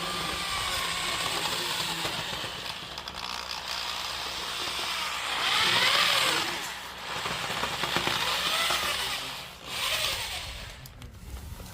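A motor running with its pitch rising and falling, loudest about six seconds in and again near ten seconds.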